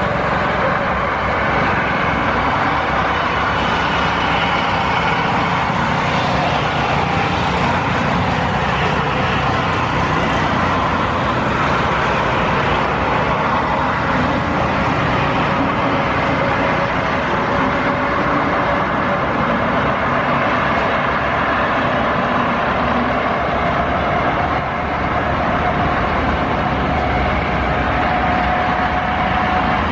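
Boeing 787-9 airliner's jet engines at climb power after takeoff, heard from the ground as a steady, even noise. A faint tone slowly rises in pitch in the second half.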